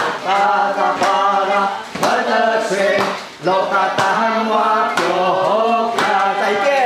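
A group of voices singing an Atayal song together, with a sharp beat about once a second.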